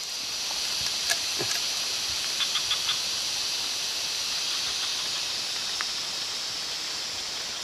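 Newly lit kindling burning under wet wood with a steady hiss, and a quick run of small crackles about two and a half seconds in.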